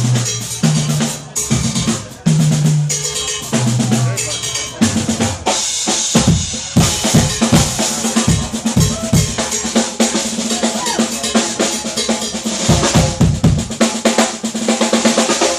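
Percussion solo on drums and cymbals: low pitched tom-like drum strokes in the first few seconds, then dense, fast rolls and strikes over a constant cymbal wash.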